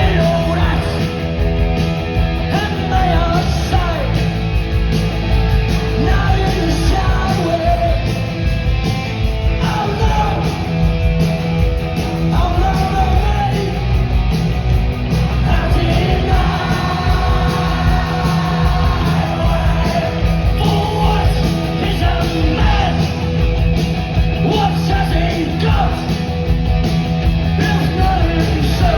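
Punk rock band playing live: loud electric guitars, bass and drums, with sung and shouted vocals over them.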